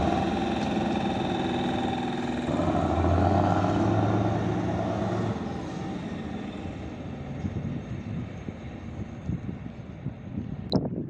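Diesel shunting locomotive engine running, growing louder for a few seconds and then fading away. A short sharp clatter near the end.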